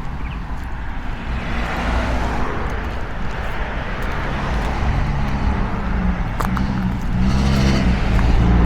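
A motor vehicle's engine running and drawing closer, getting louder and loudest near the end, over a steady low rumble.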